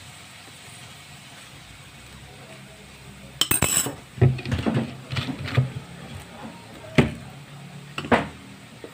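Kitchen clatter of metal utensils and glass: a sharp clink a little over three seconds in, then several more scattered clinks and knocks, over a low steady background.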